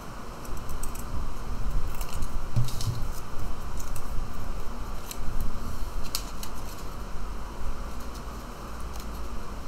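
Scissors snipping through a paper plate: a few short, sharp cuts over a steady background hiss, then the stiff paper pieces being handled, with light clicks and rustles.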